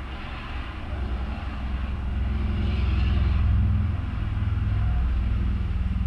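A motor vehicle engine running with a low, steady drone that swells louder over the first few seconds, then eases off slightly and holds.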